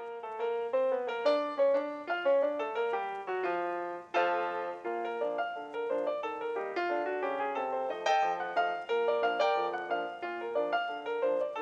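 Background piano music: a quick, busy run of notes, several a second.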